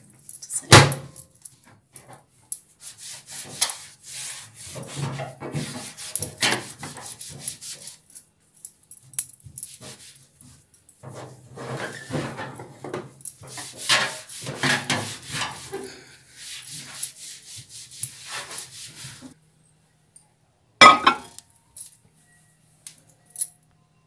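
A wet wipe rubbing and scrubbing over the microwave oven's outer casing, in uneven strokes with handling rustle. There is a sharp knock about a second in and another loud knock a few seconds before the end.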